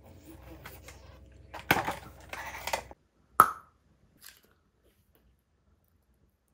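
Clear plastic jelly cup crinkling and crackling as fingers squeeze it. About a second later comes a single sharp pop with a short ring, then a faint click.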